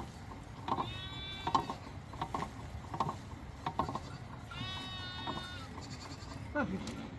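An animal crying out twice, each cry drawn out for about a second, with short light knocks repeating roughly every three quarters of a second underneath.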